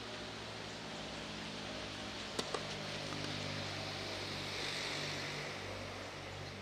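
Steady outdoor background hiss with a low hum beneath it, and two short sharp knocks in quick succession about two and a half seconds in.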